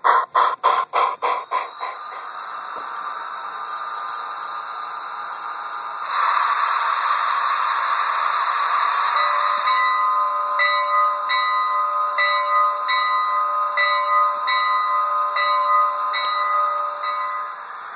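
Steam-locomotive sounds from a TCS WOW Sound decoder's speaker in an HO-scale Bachmann 2-8-0 model. Exhaust chuffs slow and fade out in the first two seconds, then a steady hiss grows louder about six seconds in. From about nine seconds a held multi-note tone joins with a soft regular beat about one and a half times a second, stopping shortly before the end.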